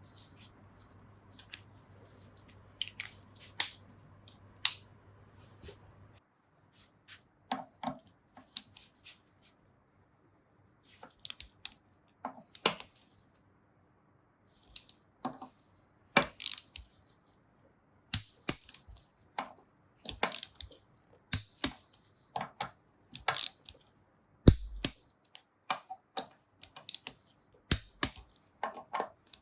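Hand tools and small metal engine parts clicking and clinking in irregular sharp taps during motorcycle starter clutch work. A low steady hum underneath stops about six seconds in.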